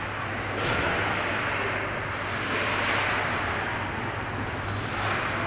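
Ice hockey skate blades scraping and carving on the rink ice, a hiss that swells and fades several times, over a steady low hum.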